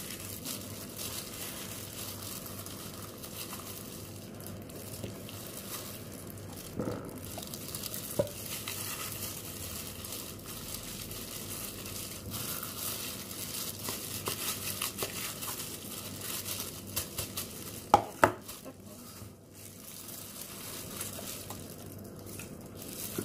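Plastic food-prep gloves crinkling, with wet squelching as hands rub a garlic and orange-juice marinade over and into a raw whole chicken. Two sharp knocks come close together about 18 seconds in.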